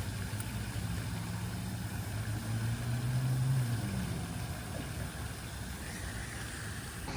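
A motor vehicle's engine running as a steady low hum, swelling briefly about three seconds in and then easing off.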